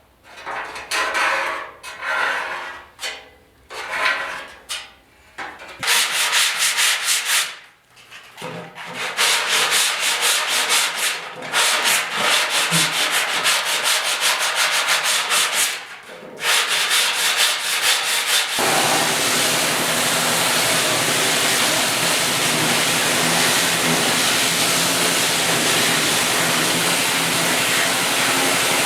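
Sanding on a truck's running board. It starts as separate back-and-forth strokes, then becomes a fast, rhythmic rasp, and from about two-thirds of the way in turns into a steady, continuous hiss.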